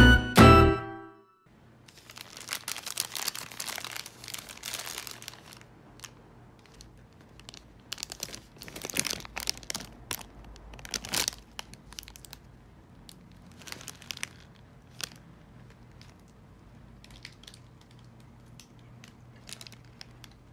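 A short musical jingle ends about a second in. Then a thin plastic shopping bag and a steamed bun's paper wrapper are handled, crinkling and rustling in irregular bursts with sharp clicks. A faint low hum runs underneath.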